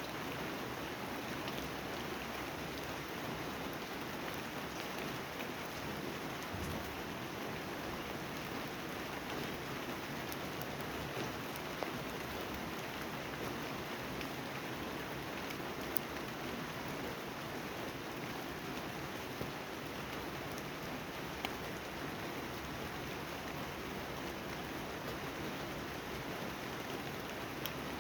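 Steady rain falling, an even hiss with a few louder single drops striking close by.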